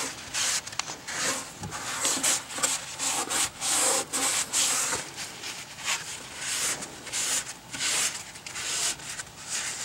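A shop towel damp with brake cleaner rubbed back and forth on the sanded aluminum hull of a boat, in a rhythmic string of swishing strokes about two a second, wiping the seam clean.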